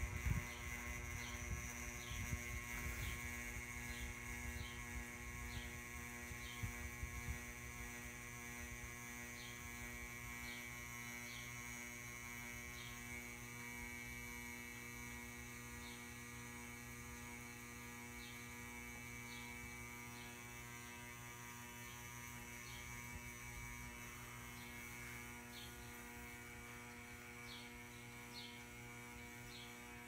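Ceiling fan running with a loud, steady electrical buzz, a sign that the fan may be failing; the owner assumes the cause is electrical.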